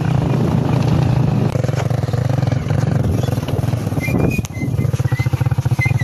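Motorcycle engine running with a rapid steady pulse while riding, easing off briefly about two-thirds of the way in and then picking up again. Short high chirps come in over it near the end.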